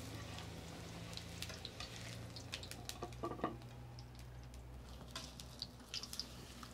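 Corn tortillas sizzling faintly in hot oil in an enamel frying pan, with scattered small crackles and a metal spatula scraping as it turns them. The oil is very hot and each tortilla gets only a quick pass, just enough to soften it.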